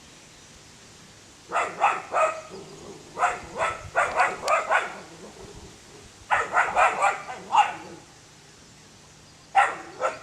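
A dog barking in four short volleys of several quick barks each, with pauses of about a second or two between them.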